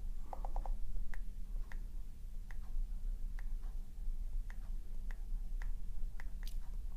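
Typing on an iPad's on-screen keyboard: short, light clicks, roughly one every half second, with a quick run of four near the start, over a low steady hum.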